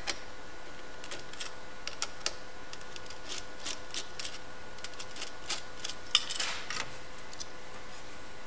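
Small metal clicks and taps from brass screws and nuts being unscrewed and handled on an LCR meter's test fixture, coming irregularly, with a faint steady high tone underneath.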